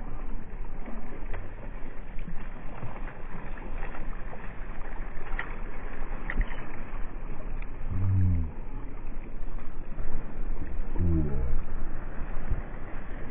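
Slowed-down, muffled sound of water washing and splashing at breakwater rocks where a hooked fish is thrashing. Two deep, drawn-out tones come through, one about eight seconds in and a rising one about eleven seconds in.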